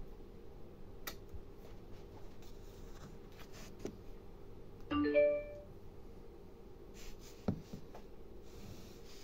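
Vintage Pioneer car-audio stack powering up: a faint steady hum with a few sharp button clicks, and about five seconds in a short electronic chime of several tones through the speakers, the kind of power-on tone given by the Bluetooth module fitted to the system.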